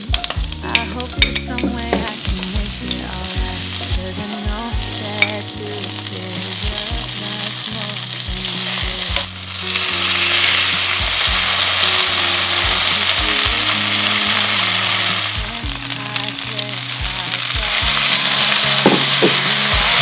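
Garlic sizzling in olive oil in a frying pan, with scraping as it is stirred. About halfway through the sizzling gets louder as cooked pasta is added and tossed in the oil.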